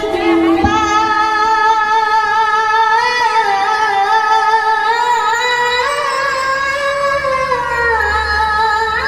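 A boy qari reciting the Quran in the melodic tilawah style into a microphone, in a high, shrill child's voice. He holds one long note that steps up in pitch twice and dips near the end.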